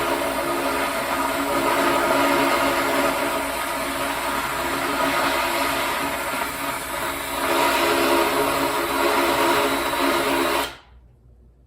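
Hyper Tough 20-volt cordless drill spinning a sanding-disc attachment against the edge of a wooden tabletop piece: a steady motor whine under the rasp of the sandpaper, dipping briefly and then cutting off suddenly near the end.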